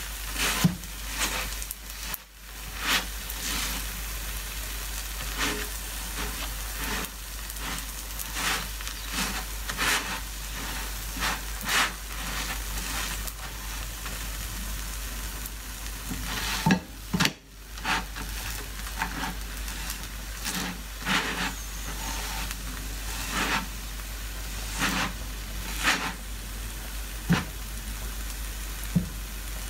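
Paratha sizzling as it fries in a nonstick frying pan, with frequent short scraping strokes of a silicone spatula pressing it round and round to make it puff up. The sizzle briefly cuts out twice.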